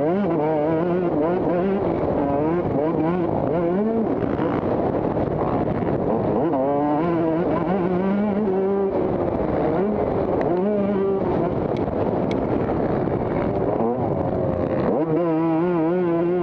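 Motocross bike engines revving as the bikes ride, several at once. The pitch climbs sharply three times, near the start, about six seconds in and near the end, as bikes accelerate, and wavers up and down in between.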